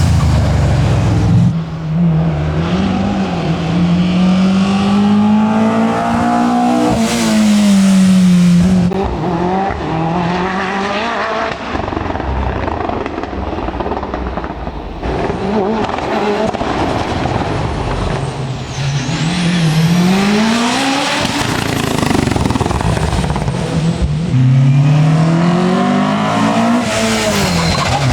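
Competition car's engine running hard up a hillclimb course, its pitch climbing through the revs and dropping back several times as it changes gear or slows for bends.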